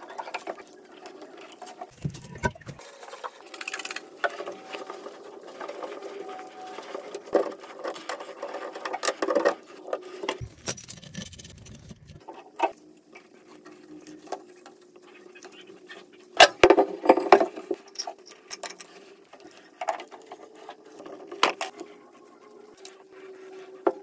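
Hand tools clicking, knocking and scraping on a toilet's fittings and floor flange during a wax-ring replacement, over a steady hum. Two short low rumbles come about two and eleven seconds in.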